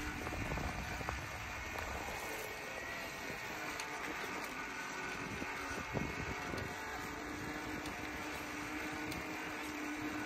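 A noisy bicycle rolling along a path: a steady mix of tyre noise and rattling from the bike, with a low rumble and a few light clicks.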